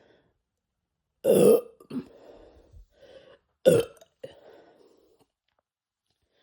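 Two loud burps from a man who has been drinking carbonated Sprite, the first a little longer, about two and a half seconds apart, each followed by quieter breathing.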